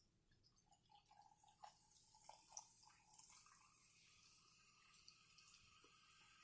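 Faint sound of carbonated sparkling water being poured: a few small gurgles and drips, then a steady fizzing hiss that slowly grows louder.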